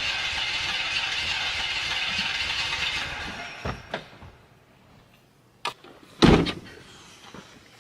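A car's engine cranking on the starter without catching, a steady whirring that dies away after about three seconds. A few clicks follow, then a car door slams shut about six seconds in.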